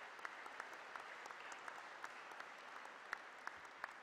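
A large audience applauding, a dense patter of many hands clapping that holds steady and then eases off near the end.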